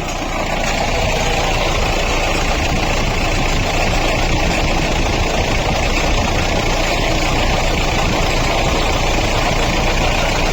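Mahindra Bolero engine idling steadily with the bonnet open. It carries an odd noise from the water pump and fan, whose bearing is damaged after an over-tightened alternator belt.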